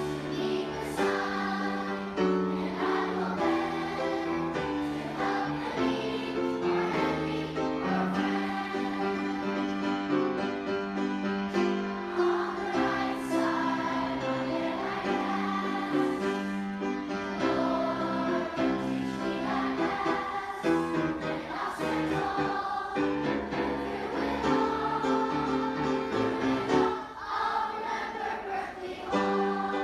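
Choir singing a school song in long held notes, played back as a shared audio recording.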